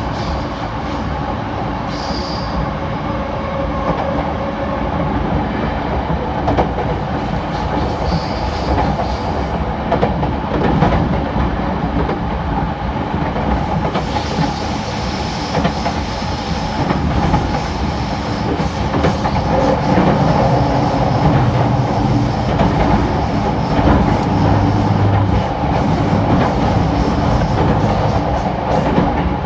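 Electric train running on rails: a loud, steady rumble with wheel and rail noise.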